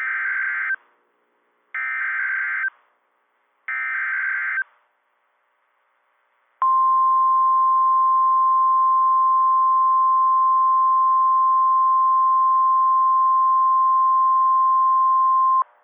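NOAA Weather Radio's EAS alert: three roughly one-second bursts of SAME header data tones, then, after a short pause, the steady single-pitch 1050 Hz warning alarm tone held for about nine seconds. The alarm signals that a warning, here a severe thunderstorm warning, is about to be read.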